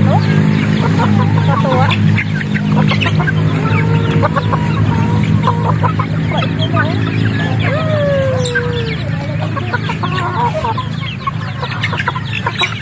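A flock of young chickens clucking and cheeping as they feed, with one longer falling call about eight seconds in.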